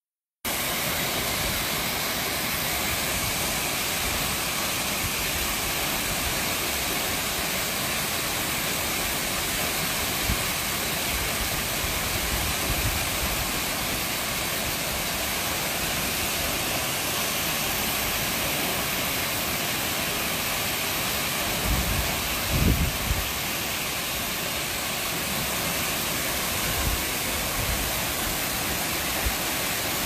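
A large waterfall with a heavy flow of water, a steady dense rush of falling water, starting after a split-second of silence. A few low thumps break through about two-thirds of the way in.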